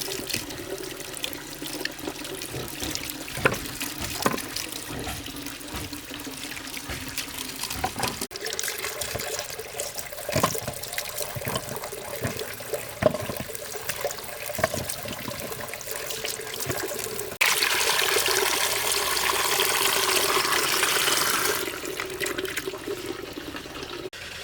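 Water running from a tap and splashing, with scattered knocks and clatter of things being handled in the water. The flow gets louder and fuller for about four seconds near the end, then drops back.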